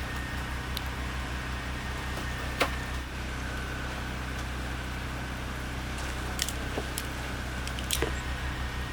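Engine running at a steady idle, a low pulsing drum, with a few sharp clicks and knocks on top.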